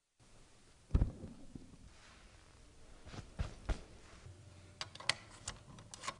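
A dull thump, a few soft knocks, then a quick run of sharp metallic clicks as a key and brass door handle are worked at a door lock.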